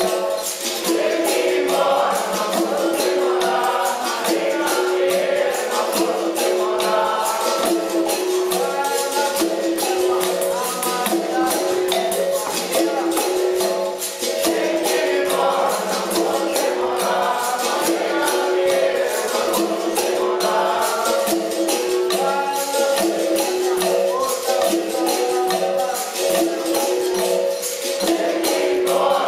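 Capoeira angola bateria playing: berimbaus, pandeiros and an atabaque drum keeping a steady rhythm, with voices singing over it.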